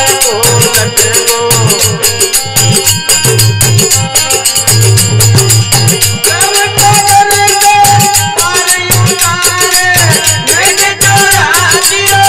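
Instrumental interlude of a Rajasthani folk bhajan: harmonium playing a held, sliding melody over a steady, quick dholak beat.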